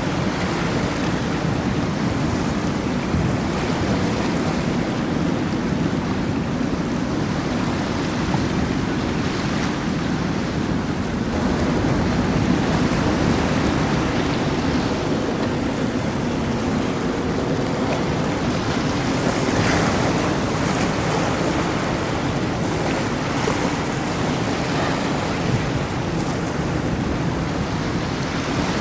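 Steady rushing noise of surf and water at an ocean inlet, with wind buffeting the microphone.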